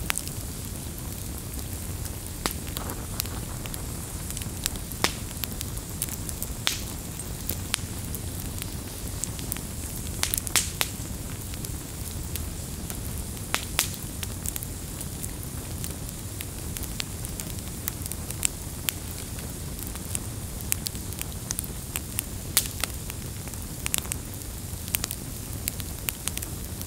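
Campfire of burning logs: a steady low rumble of flames with frequent sharp, irregular crackles and pops.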